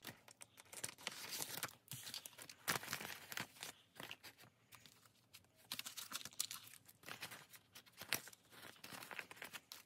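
Paper banknotes and a clear plastic binder pocket rustling and crinkling as cash is pulled out and shuffled by hand, in quick irregular faint rustles.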